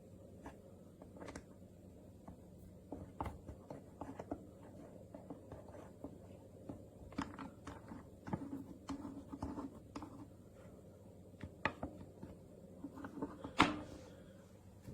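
Hands handling and tightening a metal super clamp and ballhead magic arm: scattered irregular clicks, taps and knocks, with one louder knock near the end.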